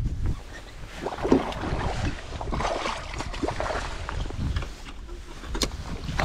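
Water splashing as a hooked bass thrashes at the surface and is scooped into a landing net, loudest from about one to four seconds in, with wind on the microphone.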